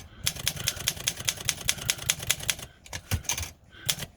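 Olympia SM3 manual typewriter being typed fast, type bars striking the platen at about nine keystrokes a second. The run breaks off about two and three-quarter seconds in, followed by a few single strikes.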